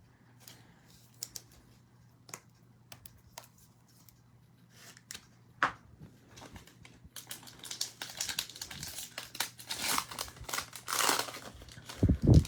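Trading-card pack's foil wrapper crinkling and tearing open, after a few seconds of scattered light clicks from cards being handled. A couple of dull thumps come near the end.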